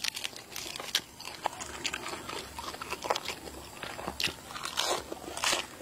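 A person chewing a mouthful of crisp lettuce leaf: irregular crunches and wet mouth sounds.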